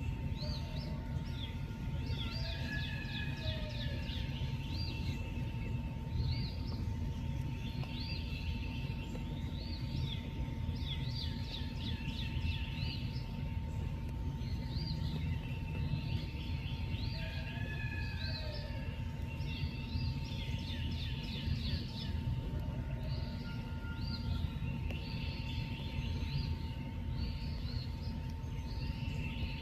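Outdoor night ambience: bursts of short, rising chirps repeated every second or two over a steady low rumble, with a thin steady tone running underneath.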